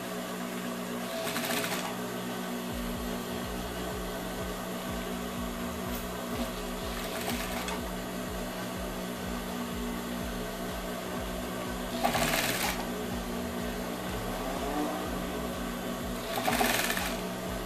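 Industrial straight-stitch sewing machine humming steadily, its needle stitching through a genuine-leather jacket sleeve and lining in a fast low rhythm that starts about three seconds in. A few brief rustles come from the leather being handled.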